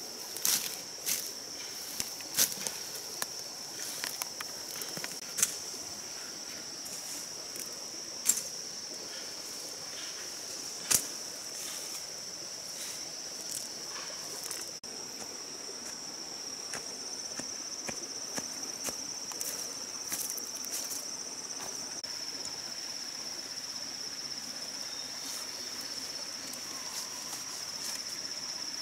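A steady, high-pitched insect chorus runs throughout. Over it, in roughly the first half, come scattered sharp snaps and rustles of fern stems and leaves being pulled and broken, the loudest two sharp cracks a few seconds apart.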